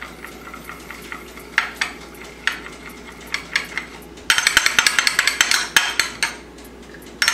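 Metal spoon stirring a sauce in a small glass bowl, clinking against the glass: a few scattered taps, then a quick run of rapid clinks from about four seconds in to past six seconds.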